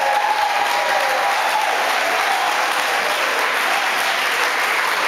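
A crowd applauding, steady dense clapping of many hands.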